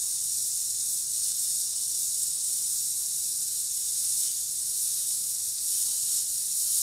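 Stovetop pressure cooker hissing steadily as steam escapes around the weight valve while pressure builds, just before its first whistle.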